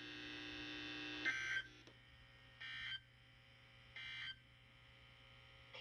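Emergency Alert System end-of-message data code from a NOAA Weather Radio broadcast: three short, buzzy digital bursts about 1.4 seconds apart, marking the end of the alert. A faint steady hum runs underneath.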